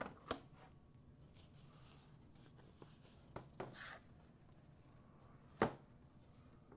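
A few light knocks and clicks of a laptop and tools being handled on a bench, with a short scrape about three and a half seconds in and the sharpest knock about five and a half seconds in.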